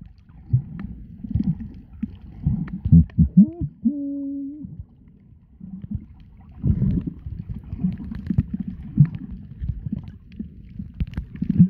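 Muffled underwater rumbling and gurgling picked up by a camera held under the sea while snorkelling, with scattered knocks. About four seconds in, a short hum rises and then holds steady for under a second.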